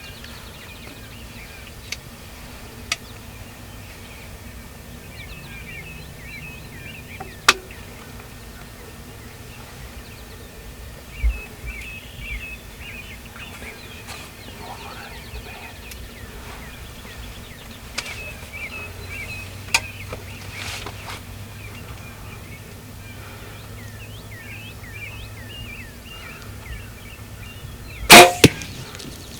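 Songbirds chirping, with a few scattered light clicks. Near the end comes a sudden loud double crack: a compound bow being shot and the arrow striking.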